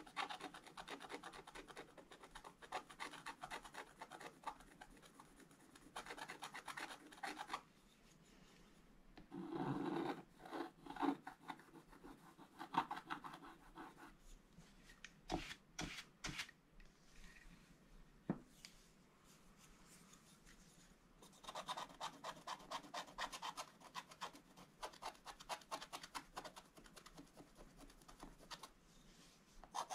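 Wooden stylus scratching the black coating off a scratch-art page in quick runs of short strokes. The runs are separated by pauses, and a few sharp clicks come about halfway through.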